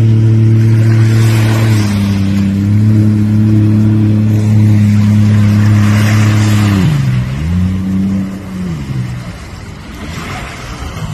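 Jet ski engine running at a steady speed, with water spray hissing. About two-thirds through its pitch dips and comes back up, then falls away and the engine goes quieter as the throttle eases.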